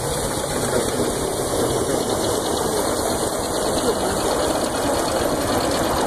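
Steam engine driving a sawmill, running steadily with a rapid, even beat while the circular saw blade spins up with no log in it.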